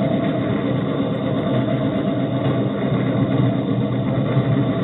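Suzuki Samurai rail cart's engine running steadily, heard close up over the open engine bay as the cart rolls along the rails.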